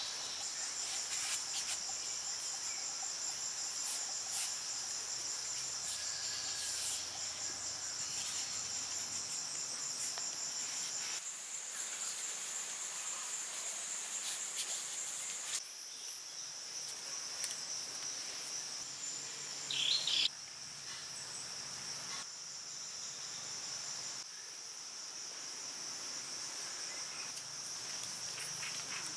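Insects chirping steadily at a high pitch, with the background changing abruptly several times. There is a brief louder chirp about two-thirds of the way through.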